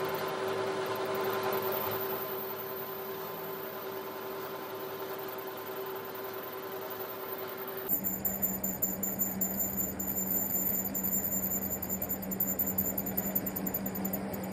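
Metal lathe running, spinning a steel excavator bucket pin between chuck and tailstock centre: a steady machine hum with a held tone. About eight seconds in the sound changes abruptly to a lower-pitched hum that pulses unevenly in loudness.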